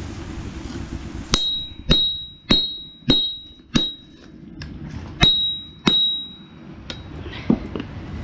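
A hand hammer striking a hot mild-steel knife blank on an anvil, eight blows about half a second apart with a short pause midway, each blow ringing briefly. The blows are aimed at the blade's edge, a hit that is hard to land while gripping the piece in tongs.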